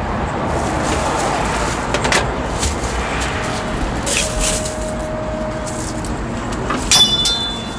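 Steady background noise of a busy street market, with a few light clicks from the crepe stall and a sharp clink about seven seconds in.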